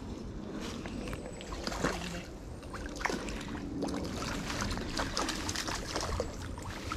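A hooked chub splashing in the water as it is played in, with scattered clicks and rustles.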